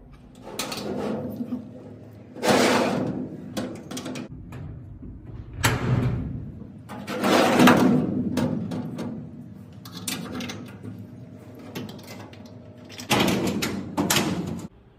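A lift-up glass cabinet door and its hardware being handled: about six separate short rubbing, knocking noises, the loudest near the middle.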